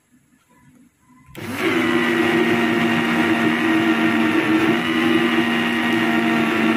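Electric blender switched on about a second and a half in, its motor then running steadily as it grinds a wet green masala paste.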